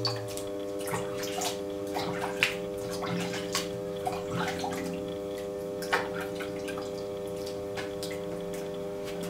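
Wet hands scooping slip and water from a bucket and smearing it onto the potter's wheel bat, to keep the bat secure: irregular splashes, drips and squelches. Under them runs the steady hum of the spinning potter's wheel.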